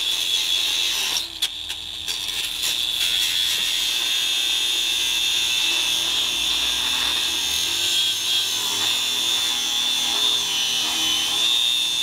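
Angle grinder cutting through the metal arm of a parking boot (wheel clamp): a steady high whine with grinding hiss. It eases off briefly about a second in, then bites back in and runs on.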